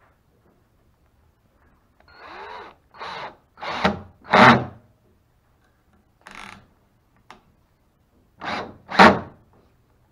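Black & Decker cordless drill-driver running in short trigger bursts, driving screws into a plywood deck panel: a run of four bursts about two seconds in, one more in the middle and two near the end, each with a whirring motor pitch that rises and falls.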